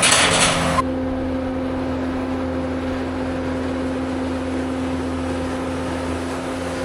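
A vehicle engine running with a steady hum. A louder hiss of noise cuts off abruptly just under a second in.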